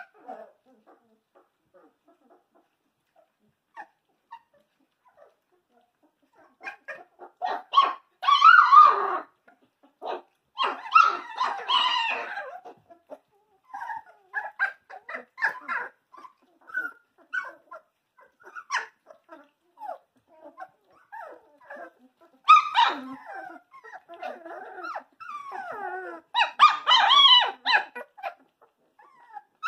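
Dalmatian puppies about three weeks old squeaking, yelping and giving small barks as they play-fight with one another. The calls come in short high-pitched bursts, starting after several quiet seconds, with the loudest flurries about a third of the way in and near the end.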